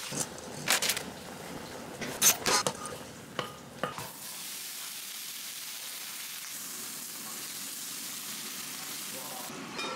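A few sharp clacks of cookware, then thin slices of frozen beef brisket sizzling steadily in a hot wok as they are stirred with spatulas.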